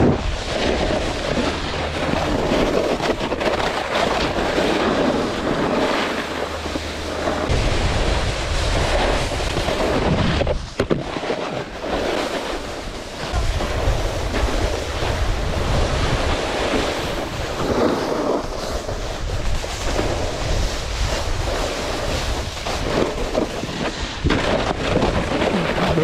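Wind buffeting the microphone and the rush of a snowboard sliding and scraping over packed snow while riding downhill, a continuous hiss over a gusting low rumble.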